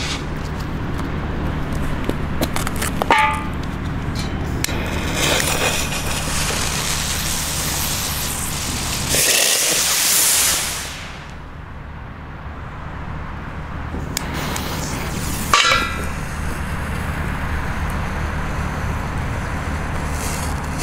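Small ground fireworks on paving: a ground spinner fizzing and sputtering for a few seconds, then a mosquito mini rocket shooting up with a loud hissing rush about nine seconds in. Short whistling pops come about three seconds in and again about fifteen seconds in, over a steady low rumble.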